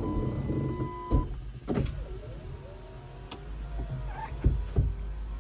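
Electric motors of a 2008 Chrysler Sebring convertible's power top mechanism running with a whine, with several clicks and clunks as the top's latches and parts move into place.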